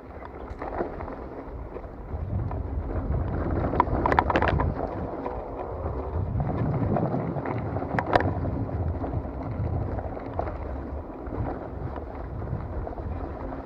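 Rigid-fork mountain bike riding over a dirt trail: wind buffeting the microphone and tyres rumbling on the ground, with a few sharp knocks and rattles as the bike hits bumps, the loudest about four and eight seconds in.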